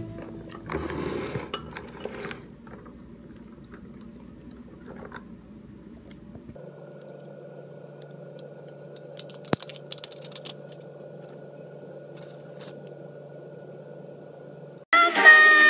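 Ice rattling in a tall glass as an iced drink is stirred with a straw. After that, a steady low hum of room tone, with a few light clicks and taps as bread and cheese are handled on a plate.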